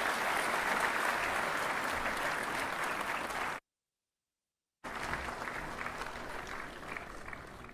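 Audience applauding. About halfway through, the sound cuts out completely for roughly a second, then the applause returns and gradually dies away.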